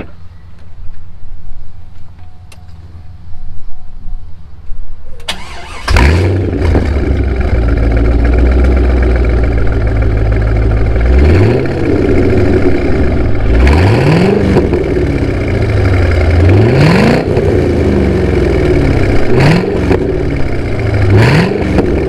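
A 1999 Chevrolet Corvette C5's 5.7-litre LS1 V8 is started about five seconds in, with a brief crank before it catches, and settles into a steady idle heard at the exhaust tips. From about eleven seconds on it is blipped in five quick revs, each rising and falling in pitch.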